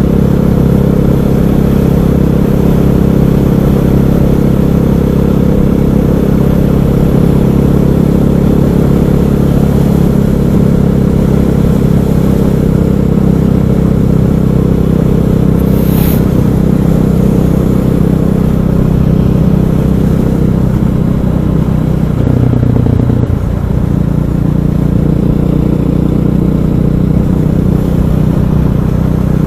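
KTM 500 EXC's single-cylinder four-stroke engine running at a steady cruise under a rider, with a shift in engine note about three quarters of the way through.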